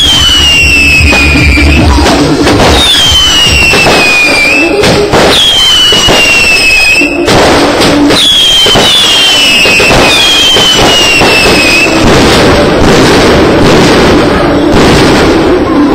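A loud, dense barrage of display firework bursts and crackling, with falling whistling tones repeating every couple of seconds. Electronic dance music plays underneath.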